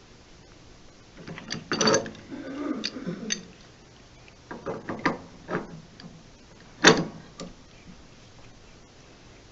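Metal clicks and clanks of a large pipe wrench working an old water heater pressure relief valve loose: a cluster of knocks from about one to three and a half seconds in, a few more around five seconds, and one sharp clank, the loudest, about seven seconds in.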